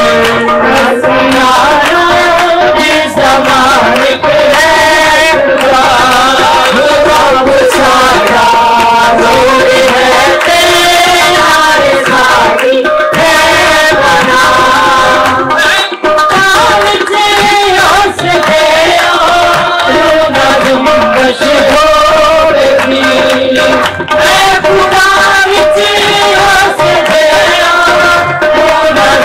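Loud worship music: a song sung to hand-drum accompaniment of the tabla or dholak kind, with a steady beat.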